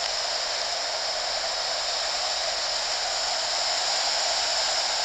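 Steady hissing rush of ocean surf on the beach.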